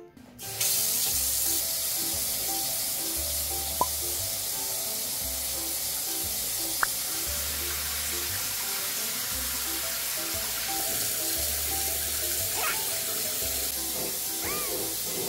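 Tap water running steadily from a faucet into a deep sink-style dog bath, with background music over it.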